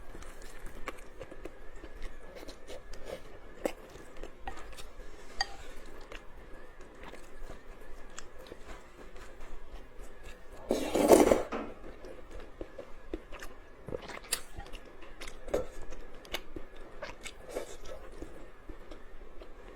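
Close-up eating of luosifen noodles with tofu skin: chewing with many small scattered clicks, and one louder, longer rush of noise about eleven seconds in.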